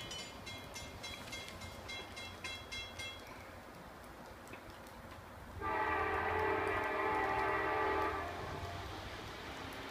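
Amtrak locomotive horn sounding one long blast, several tones together, starting a little past halfway and lasting about two and a half seconds.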